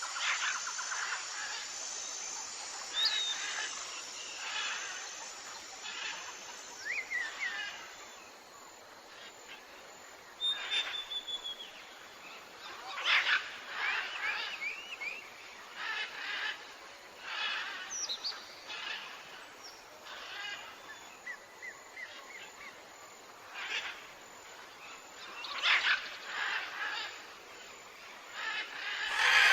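Wild birds chirping and calling outdoors: many short calls and trills come at irregular intervals over a faint steady hiss, with a high, evenly repeated note during the first several seconds.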